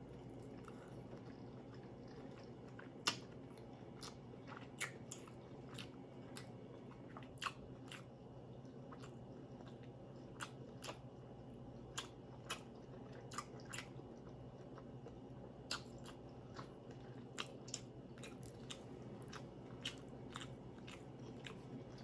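A person chewing a mouthful of lobster tail meat in sauce, close to the microphone, with faint wet mouth clicks and smacks at irregular moments about once a second. A faint steady low hum runs underneath.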